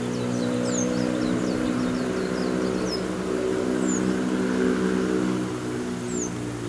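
A vehicle engine running steadily, a low, even hum that holds throughout, with a small bird's short, high chirps repeating every second or so.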